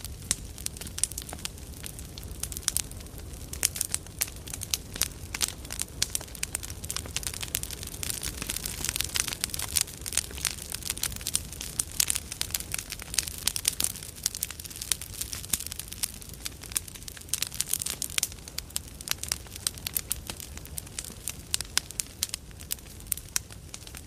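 A large campfire burning: burning wood crackles and pops in a dense, irregular run of sharp snaps over a low, steady rush of the flames.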